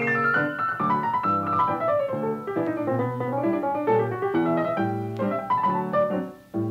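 Background piano music: a piece of chords and a running melody, dipping briefly near the end.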